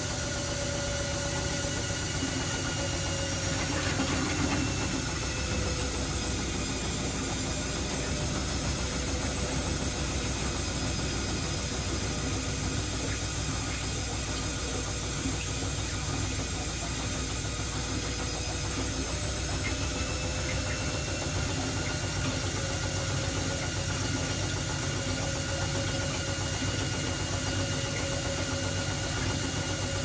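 Zanussi ZWF16070W1 front-loading washing machine in a high-speed spin: a steady motor whine over the hum of the spinning drum.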